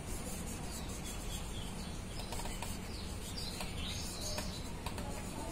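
Marker writing on a whiteboard: soft rubbing strokes and light taps, with a few short high chirping squeaks in the second half.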